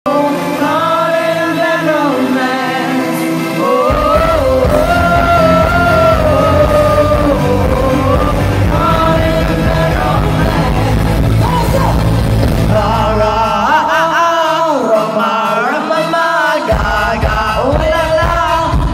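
Live pop music through an arena sound system, heard from the crowd: a woman singing over a heavy bass beat. The bass comes in about four seconds in, drops out around fourteen seconds and returns near the end.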